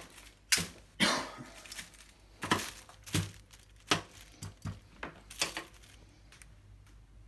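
Handling noises at a stainless-steel kitchen sink: about eight irregular sharp knocks, clatters and rustles as things are picked up and moved.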